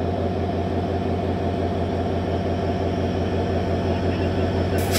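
Diesel locomotive engine running with a steady low, evenly pulsing throb as it moves slowly along the platform. A burst of hissing starts right at the end.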